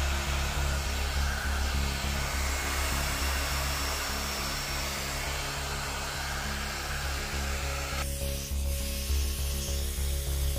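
Heat gun blowing hot air, shrinking clear heat-shrink film around a lithium-ion cell pack: a steady airy rush that drops away sharply about eight seconds in.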